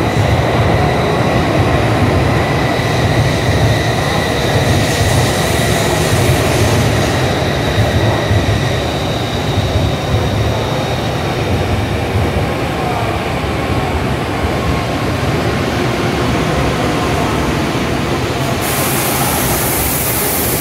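Tokaido Shinkansen N700S train rolling in along the platform to stop, its cars passing with a steady low rumble. A thin, high, steady whine sounds over it at first and fades out around the middle, and a high hiss comes in near the end.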